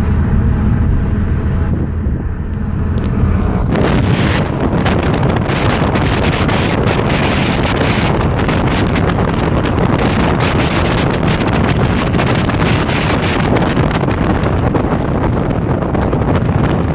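Car driving along a street, heard from the cabin: a steady low engine and road hum, then from about four seconds in heavy, gusting wind buffeting on the microphone that swamps everything else.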